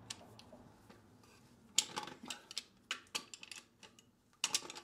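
Pipe wrench gripping and turning a rusted threaded pipe fitting out of a steel tee: scattered light metal clicks and knocks, about a dozen, starting about two seconds in, with a quick cluster of sharper ones near the end.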